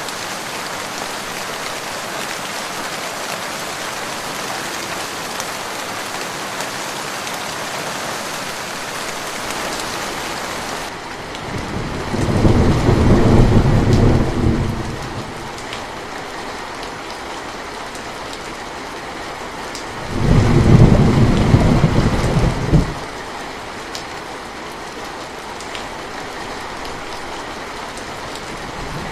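Steady rain falling, with two loud low rolls of thunder about twelve and twenty seconds in, each lasting about three seconds.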